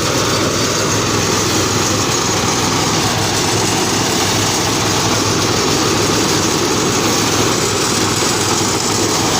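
An engine running steadily at a constant speed, giving an even low hum under a dense mechanical clatter.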